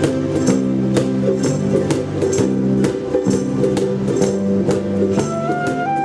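A ukulele band playing an instrumental passage: strummed ukuleles over a stepping bass line, with a steady percussive beat. A higher sustained melody line comes in near the end.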